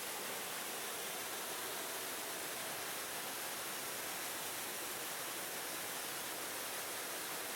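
Rushing water from a waterfall, a steady, unbroken hiss with most of its strength in the middle and high range.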